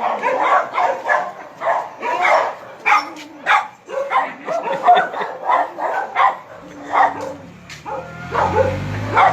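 A dog barking and yipping in short, repeated barks, about two a second. A low hum joins in during the last couple of seconds.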